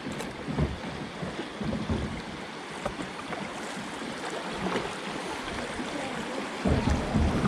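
Water washing and splashing around a kayak moving on a river, with scattered low knocks. Heavier low rumbling comes in near the end.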